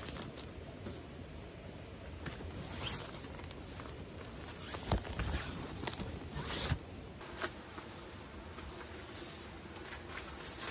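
Zippers being run along the edges of a camping shelter's wall panels as urethane windows are fitted: several short zips, the longest about six to seven seconds in, with a sharp click in between.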